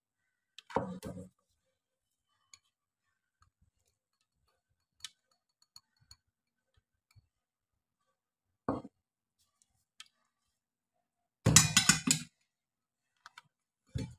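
Sparse kitchen clicks and clinks as diced pineapple is tipped from a bowl into cake batter and a wire whisk works in a plastic mixing bowl. A short clatter of several quick knocks comes about three quarters of the way through.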